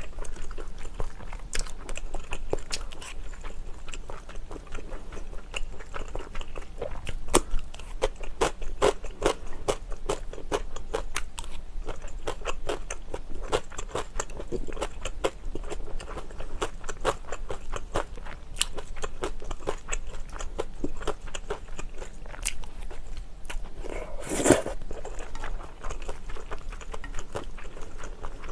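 Close-miked eating sounds of a person chewing cream pasta and glass noodles: a steady run of wet mouth clicks and smacks. About three-quarters of the way through there is one louder slurp lasting about a second.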